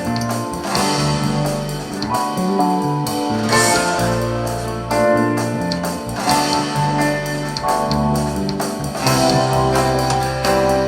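Guitar music with deep bass notes, played through a Telefunken TA 350 amplifier and Soviet 10 MAS-1M loudspeakers and recorded off the speakers in the room.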